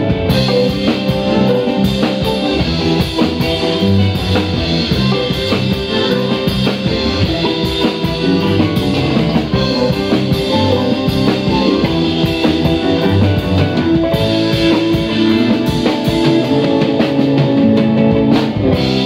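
Live rock band playing: a Telecaster-style electric guitar leading over bass guitar and a drum kit, with a steady driving beat.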